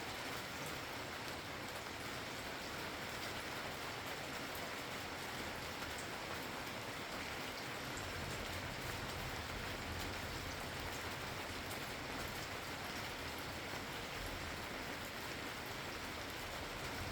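Steady rain falling, with scattered individual drops ticking. About halfway through a low rumble comes in underneath and carries on.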